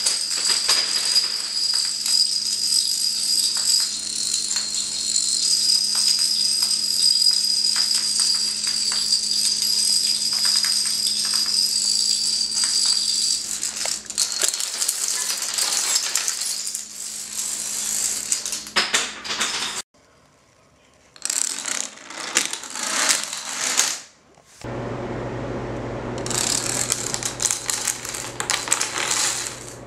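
Plastic dominoes toppling in a long chain reaction: a continuous rattling clatter over a steady high-pitched tone, which stops abruptly about two-thirds of the way in. A few short bursts of clatter follow, then a shorter run of falling dominoes over a low hum near the end.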